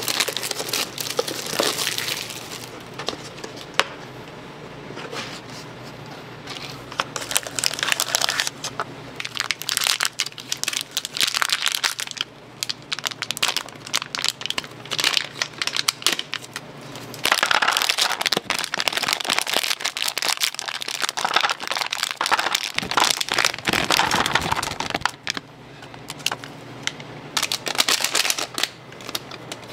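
Crinkling and crushing of an instant ramen packet's plastic wrapper as it is handled and opened, in irregular crackly stretches. It is quieter for a few seconds early on and busiest past the middle.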